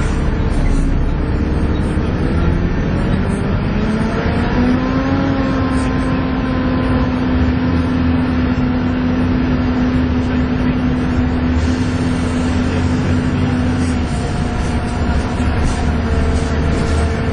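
Volvo B7TL double-decker bus's engine pulling hard under load, with the whistling 'hoover' whine. Its pitch rises over the first few seconds, then holds steady until a drop about two-thirds of the way through, after which it picks up again.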